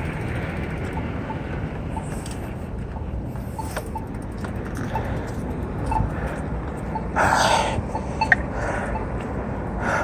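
Mountain bike riding noise: steady wind and tyre rumble on the helmet or body microphone, with faint small ticks and a short loud rush of noise about seven seconds in.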